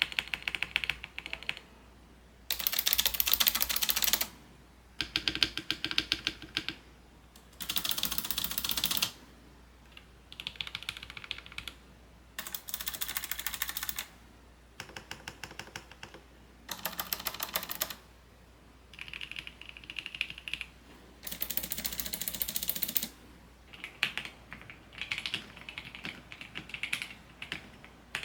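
Typing on a computer keyboard in short bursts of rapid keystrokes with brief pauses between. Louder, brighter bursts of clatter alternate with softer, duller ones.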